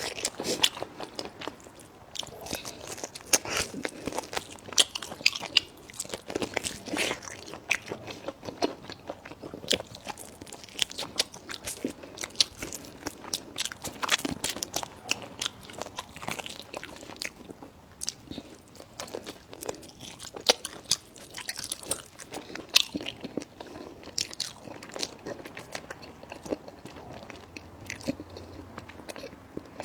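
A person chewing and biting food, with many sharp crunches at irregular intervals.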